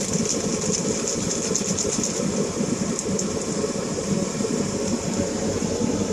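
Steady whir of a kitchen extractor hood fan, with the hiss and crackle of hamburger patties frying in a pan.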